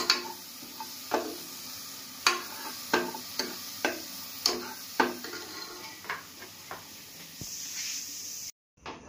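A metal spoon scraping and knocking against the sides of an aluminium pressure cooker about twice a second while curry masala is stirred, with a steady frying sizzle underneath. The stirring stops near the end.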